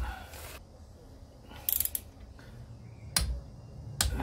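Click-type torque wrench working a cylinder head bolt on a Yamaha XJ750 engine: a quick run of ratchet ticks about two seconds in, then two single sharp clicks near the end.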